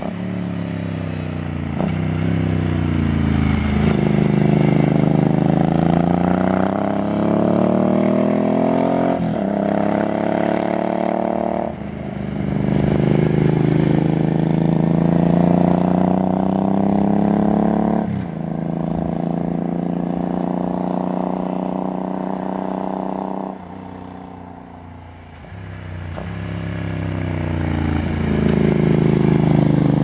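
Suzuki Intruder C800 (VL800) V-twin cruiser with an aftermarket Silver Tail open exhaust, accelerating up through the gears: the engine note climbs, then drops sharply at each upshift, several times. A little after the middle the throttle eases and it goes quieter, then it pulls hard again and grows louder as the bike approaches and passes.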